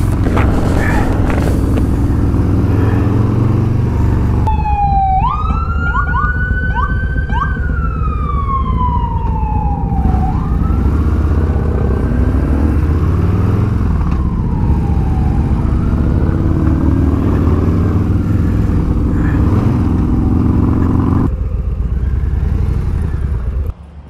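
An emergency vehicle's siren wailing in long rising and falling sweeps, with a quick yelping stretch early on, over the steady low run of a Harley-Davidson V-twin and wind at riding speed. The siren fades out a few seconds before the end.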